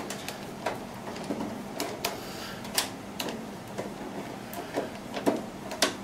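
Phillips screwdriver working the screws of a computer case's metal expansion-slot covers: irregular small metallic clicks and taps as the screws are turned and the thin cover plates handled.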